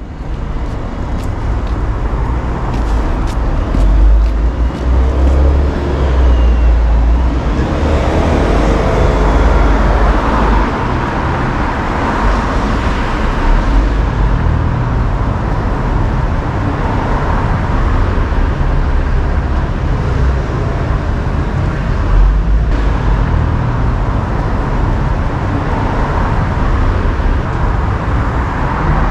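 Road traffic on a busy city street: cars and buses passing in a steady wash of engine and tyre noise.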